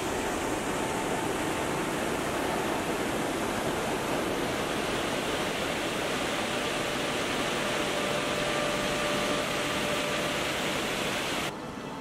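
Water pouring over a lake dam's concrete spillway: a steady rush of falling water that cuts off shortly before the end.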